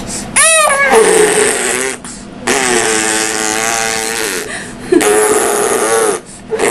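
Baby crying loudly in three long wails with short breaks between, protesting at being offered a bottle: a breastfed baby refusing the bottle.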